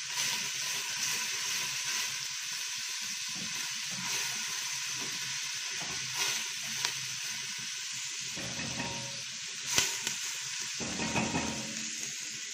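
Chopped onion sizzling steadily in hot fat in a stainless-steel pot while being stirred with a wooden spoon, being lightly sautéed without browning. A few sharp clicks come through, the loudest a little past the middle.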